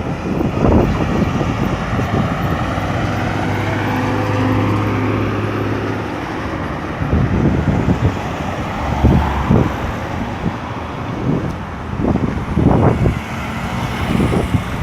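Road traffic moving through a roundabout: cars passing, with one engine holding a steady drone for a few seconds in the first half. Uneven low rumbles and gusts follow in the second half.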